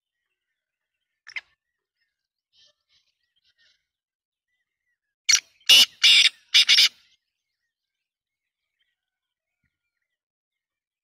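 Black francolin calling: a single short note about a second in, a few faint soft notes, then a loud, harsh call of five rapid notes a little past the middle.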